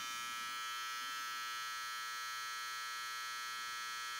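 BaByliss Boost FX (Boost+) cordless hair trimmer running at full speed, about 7,200 rpm, with a steady, even hum.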